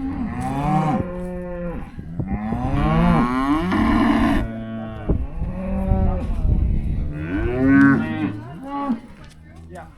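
Several cattle bawling over one another in a pen, with one long, loud bawl starting about two seconds in. It is the steady bawling of cows and calves at weaning.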